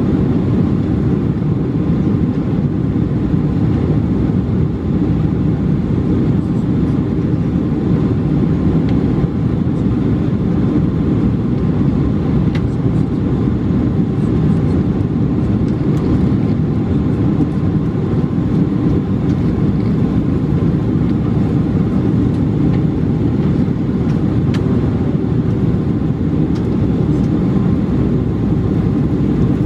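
Steady low rumble of a Boeing 747-436's Rolls-Royce RB211 engines and airflow, heard from inside the passenger cabin, holding an even level with no change in pitch.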